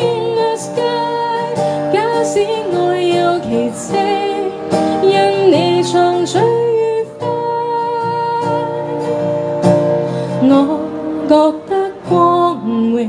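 A woman singing a Cantonese pop song into a microphone, accompanying herself on a strummed acoustic guitar.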